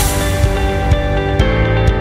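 Background music: sustained chords over a bass line with a light beat of about two strokes a second, the chord changing about one and a half seconds in.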